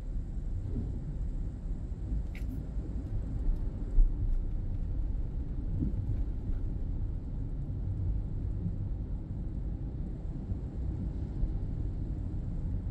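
Car driving on city streets, heard from inside the cabin: a steady low rumble of road and engine noise, with one short thump about four seconds in.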